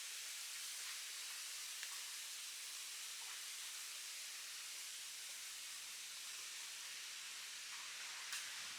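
Campfire burning: a steady soft hiss with a few faint crackles, and a sharper pop near the end.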